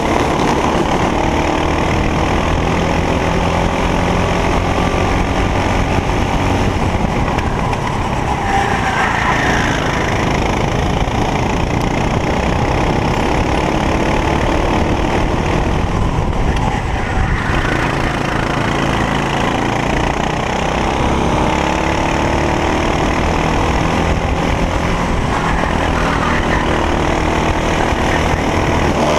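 Racing kart engine at race pace, heard from a camera mounted on the kart, its pitch climbing slowly along the straights and dropping back several times when lifting for corners.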